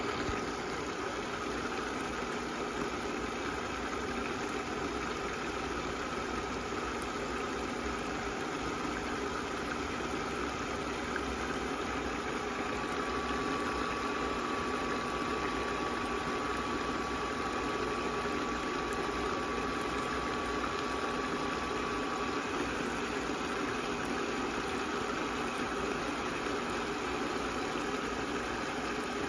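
Water boiling and sizzling steadily under the glass lid of a gyoza pan on an induction cooktop, together with a steady hum. A faint high steady tone comes in partway through and fades out later.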